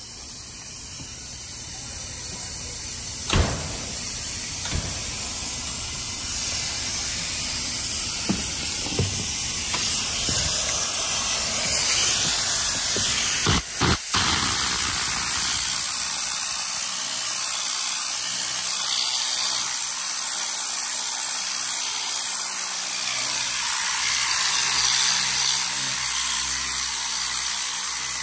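Steady hiss of a pressurised cleaning sprayer working over a vehicle door panel, growing stronger through the first half, with a few sharp knocks and taps in the first half.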